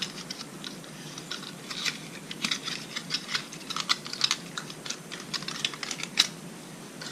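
Hands handling a yo-yo and its small plastic packaging: irregular light clicks and ticks, several a second.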